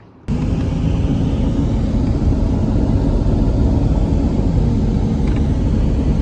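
Steady road and wind rumble of a vehicle driving at speed, cutting in abruptly about a quarter second in.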